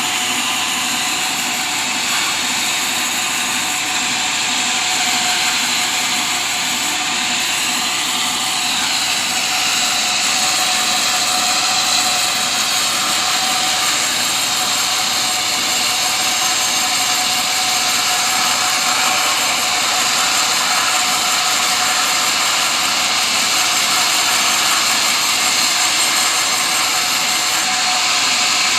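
Sawmill running steadily and loudly, sawing teak, a dense high-pitched whine and hiss with a steady hum underneath.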